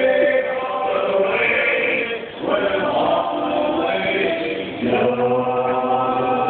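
A male vocal group singing a sea shanty together in harmony, with long held notes and a short break between phrases about two seconds in.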